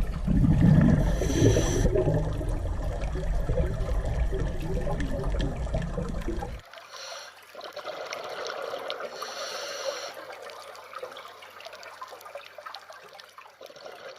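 Rushing, splashing water with a heavy low rumble, cutting off abruptly about halfway through to a quieter trickling and bubbling of water.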